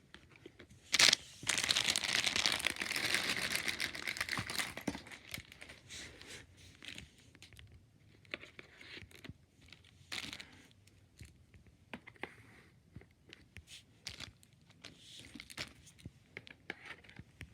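Crinkly wrapping being crumpled and torn by hand. A sharp knock comes about a second in, then a dense stretch of crinkling for about three seconds, then scattered small rustles and clicks.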